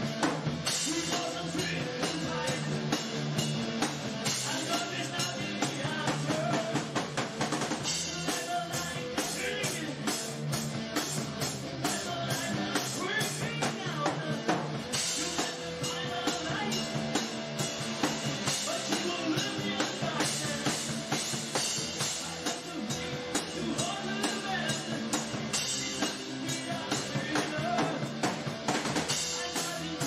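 Background music with a drum kit keeping a steady beat.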